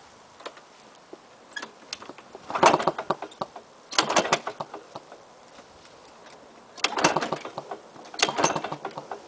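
Four pulls on the recoil starter of a 2000 Lawn-Boy 10401C mower's two-stroke F engine, each a short rattling crank; the engine does not catch.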